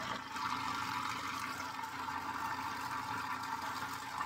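Food processor running steadily, its blade whirring through soft cream cheese batter to blend in granulated sweetener.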